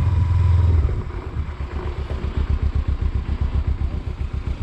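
A vehicle engine running hard, then easing off about a second in to a low, even putter of roughly eight beats a second.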